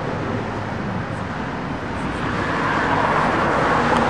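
Road traffic: a steady hum of tyres and engines, swelling as a car passes about three seconds in.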